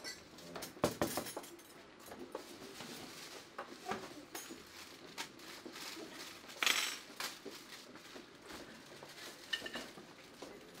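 Plates, metal serving utensils and steel pots clinking and clattering as food is served, with irregular sharp clanks; the loudest come about a second in and just before seven seconds, and a short ringing clink comes near the end.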